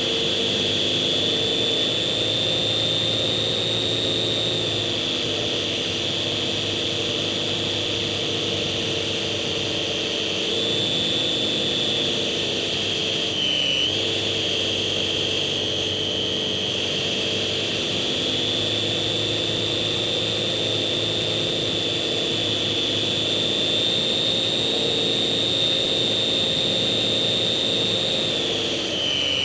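GWS Slow Stick model airplane's electric motor and propeller running steadily in flight, heard through the onboard FPV camera: a high whine over a lower drone. The pitch dips briefly about halfway through and drops again near the end.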